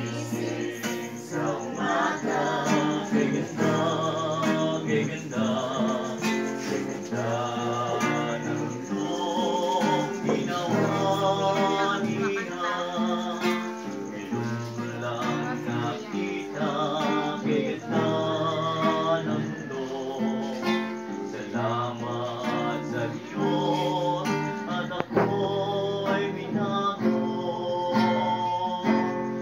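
A group of young voices singing a song together to an acoustic guitar.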